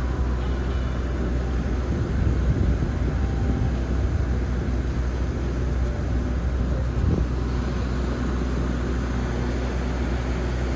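Boat engine running steadily, a low drone with a constant rushing noise over it, with brief low surges about two and seven seconds in.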